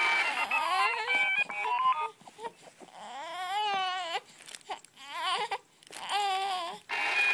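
An infant fussing, with two drawn-out, wavering cries. An electronic toy melody of stepped notes plays first, stops about two seconds in, and starts again at the very end.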